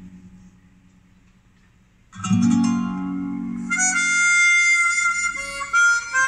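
Recorded music played through a KT88 push-pull valve amplifier and small speakers during a listening test after repair. A guitar chord fades into a short lull, a new guitar strum comes in about two seconds in, and held harmonica notes join about a second and a half later.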